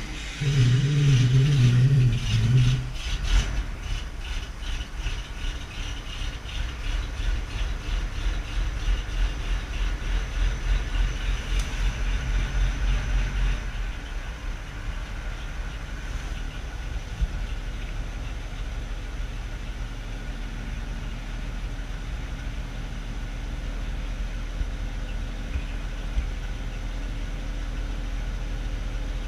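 1945 CMP HUP engine running with the strange noise that shows up only after the vehicle has stood a long time in very cold weather, its cause unknown to the owner. A loud wavering low groan in the first few seconds gives way to a rhythmic pulsing sound that fades out about halfway through, leaving a steady idle.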